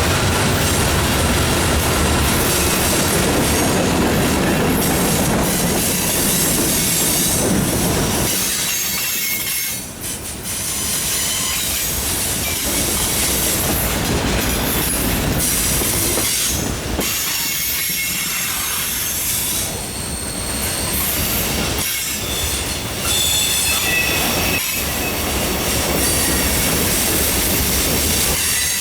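Cars of a mixed freight train rolling past at close range, a steady loud rumble with intermittent high-pitched wheel squeal. The low rumble thins briefly about a third of the way through.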